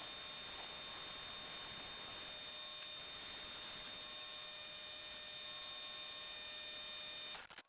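Steady electrical hum and hiss with several fixed high-pitched tones, cutting off suddenly near the end.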